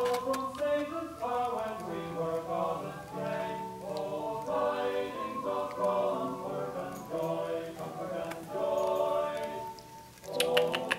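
Background music with several voices singing together in long held notes, like a choir; it dips briefly near the end, then comes back louder.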